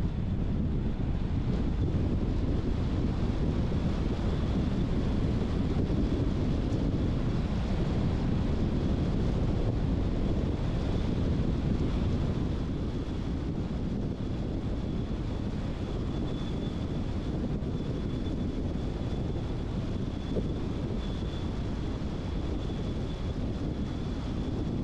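Car driving: steady road, tyre and wind noise, with a thin high whine, easing slightly about halfway through.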